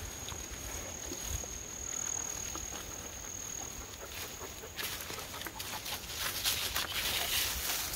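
Footsteps crunching and shuffling through dry fallen leaves on a dirt trail, growing louder and crisper about halfway through. A steady high thin tone runs through the first half.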